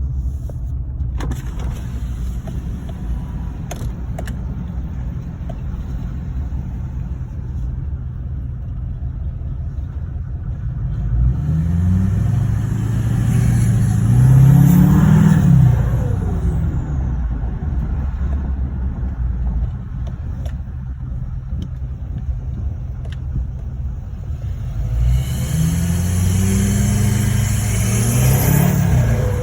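LML Duramax 6.6-litre V8 turbo-diesel exhaust through a 5-inch system, running with a very low drone. It accelerates twice, about halfway through and again near the end, its pitch rising and then dropping back.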